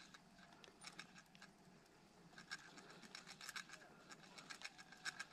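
Spinning reel being cranked to retrieve a lure: faint, irregular ticking and clicking from the reel, getting busier about halfway through.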